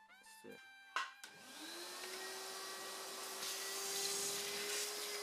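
Vacuum cleaner switched on with a click about a second in; its motor spins up with a rising whine, then runs steadily with a rushing hiss.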